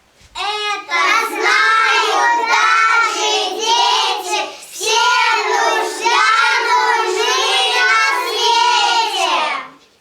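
Children's voices singing without accompaniment, high-pitched and loud, in two long phrases with a short break about halfway through.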